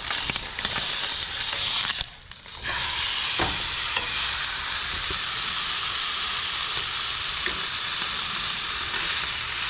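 Ham steak sizzling in a hot frying pan, a dense, steady hiss that briefly drops out about two seconds in before sizzling strongly again.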